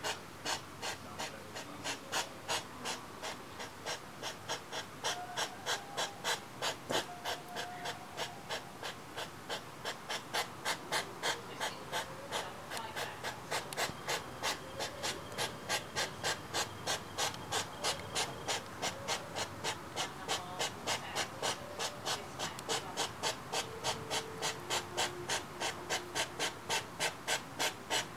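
A European hedgehog's courtship huffing: fast, rhythmic puffs of breath, about three to four a second, kept up without a break.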